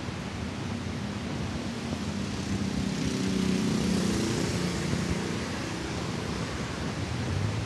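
A motor vehicle passing, its engine hum and tyre hiss swelling to their loudest about four seconds in and then fading, over steady wind noise on the microphone.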